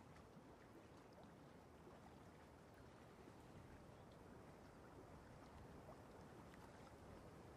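Near silence: faint steady room noise with a few faint, scattered ticks.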